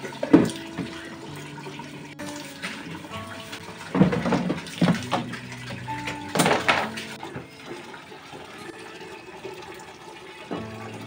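Water poured from a plastic dipper splashing over a plastic dish cabinet, in several bursts: about a second in, around four to five seconds in, and a larger one at about six and a half seconds. Soft background music plays under it.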